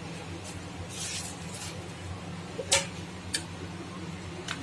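A white ceramic plate being handled over a plastic sheet, with a sharp clink about two and a half seconds in, a few lighter clicks, and a brief soft rustle about a second in. A steady low hum runs underneath.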